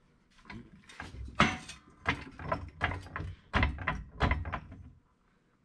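A floor jack being pumped under a VW Beetle's front axle beam: a run of irregular metallic clunks and creaks from the jack's handle and lifting arm, starting about half a second in and stopping about a second before the end.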